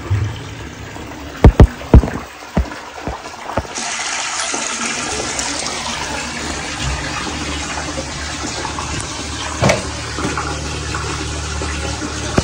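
Water being pumped into a snake's burrow to flush out a monocled cobra, gushing and splashing. A few loud sharp knocks come about a second and a half in. From about four seconds in there is a steady hiss of running water over a low motor hum.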